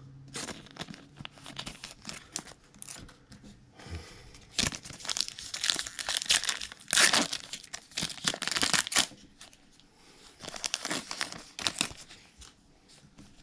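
Thin plastic crinkling and rustling in irregular bursts, the loudest about seven seconds in, as trading cards are handled in their plastic packaging and sleeves.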